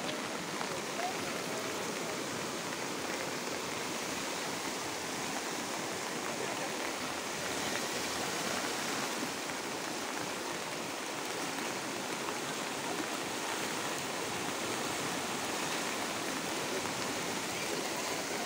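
Steady rushing of a muddy river in flood, mixed with the hiss of falling rain.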